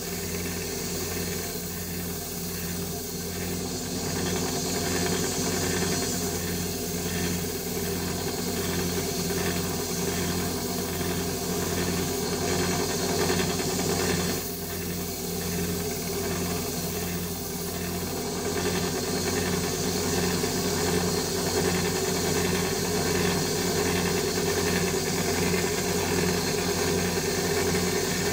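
Small 1x30 inch belt grinder running steadily with a 600-grit belt, hissing against the edge of a railway-spike knife blade as it is sharpened.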